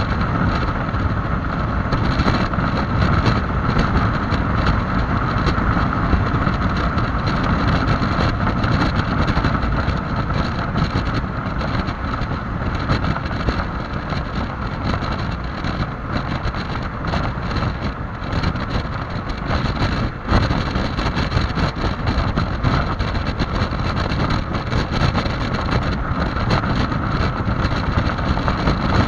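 Heavy wind noise buffeting the microphone on a Yamaha XMAX 300 scooter ridden at high speed, with the scooter's single-cylinder engine droning steadily underneath.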